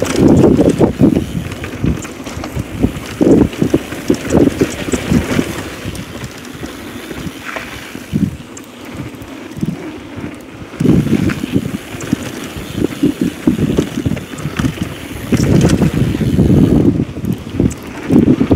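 Wind buffeting the action camera's microphone as a downhill mountain bike rolls fast down a dirt and gravel trail, with scattered clicks and rattles from the bike and tyres. The rumble comes in gusts, easing off for a few seconds midway and swelling again near the end.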